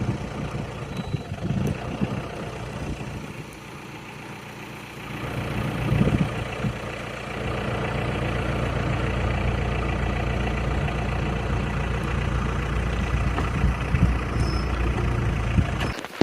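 Heavy truck engine running steadily, easing off for a couple of seconds, then picking up again about six seconds in and holding steady; it cuts off just before the end.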